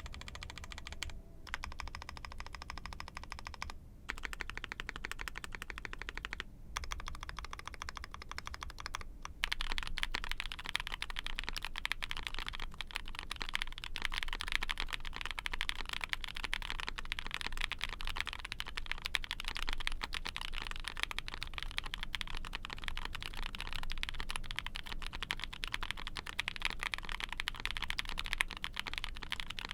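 Typing on an Ai03 Vega mechanical keyboard with a POM plate, GMK keycaps and lubed linear 'OP Carrot' BCP frankenswitches (OP Black bottom housing, Tecsee Carrot POM stem, Hyperglide Cherry top). Several short runs of key presses with brief pauses between them, then steady, faster typing from about nine seconds in.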